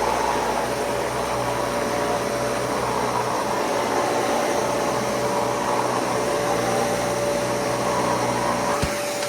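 Dyson Cinetic Big Ball canister vacuum cleaner running steadily, a constant rushing whine with one held tone, with a brief knock near the end.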